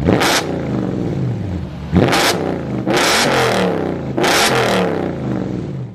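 Car engine revved hard several times, its pitch climbing with each rev, with a loud rush of exhaust noise at the top of each one, about four in all.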